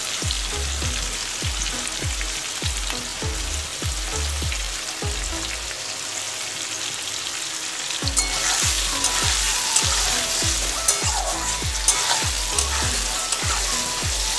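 Diced potatoes, tomatoes, onion and green chillies sizzling in hot oil in a kadai, a steady frying hiss. From about eight seconds in it gets louder and brighter as the vegetables are stirred and tossed with a metal spatula.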